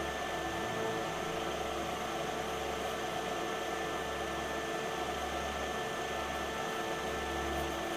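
Steady background hiss with a low hum and a few faint steady tones, unchanging throughout.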